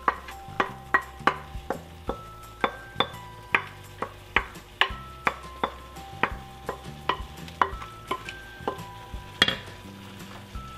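A wooden spoon scraping and knocking against a glass bowl as flaked salt cod is pushed off it into a pan of tomato sauce, with repeated sharp clicks. Soft background music with plucked notes plays underneath.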